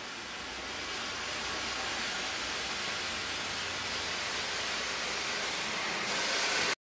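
Steady hiss of steam escaping from a standing Southern Pacific 4-6-2 Pacific steam locomotive. It swells gradually at first, holds steady, grows louder about six seconds in and then cuts off abruptly.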